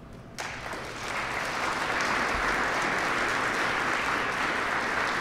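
Audience applauding, starting suddenly about half a second in and building over the next second into steady clapping.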